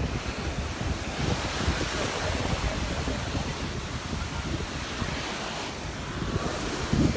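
Small surf breaking and washing up the beach, one wash swelling about a second in and fading after about five seconds, with wind rumbling on the microphone.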